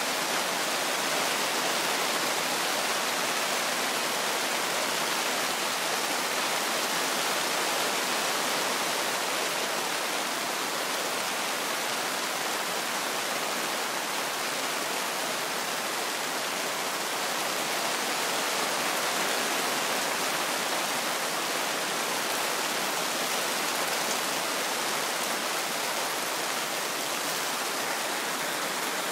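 Heavy rain pouring down in a steady, even hiss, falling on a tarp shelter overhead and on the wet ground around it.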